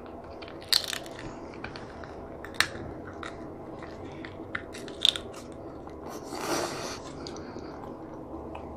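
Close-miked eating sounds: chewing, with scattered sharp cracks and clicks of snow crab leg shell being worked open, three of them louder than the rest. A short soft hiss comes about six and a half seconds in.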